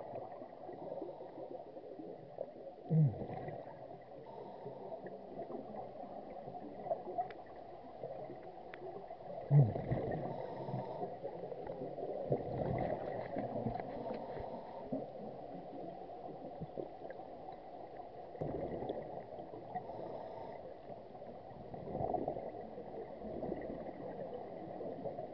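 Scuba diving regulator underwater: exhaled bubbles gurgle and rumble in bursts every few seconds, the strongest about 3 and 10 seconds in, over a steady low rush of water and bubbles.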